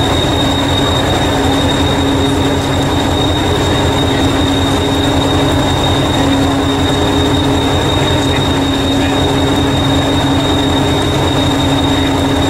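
Hastings diesel-electric multiple unit (1001) idling at the platform: a steady engine drone with a high, even whine over it.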